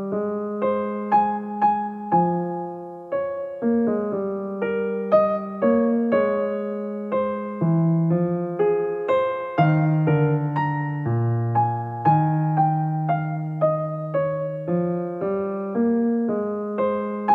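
Solo piano background music: a gentle piece with notes struck about two a second over a lower line that changes every second or two, each note fading after it is struck.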